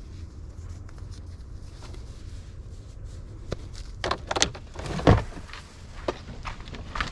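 Scattered knocks and clatter of things being handled, over a steady low rumble, the loudest a single thump about five seconds in.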